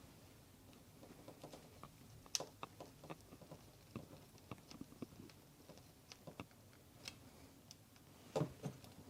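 Screwdriver and small plastic robot parts being handled: irregular light clicks and taps, with two louder knocks near the end.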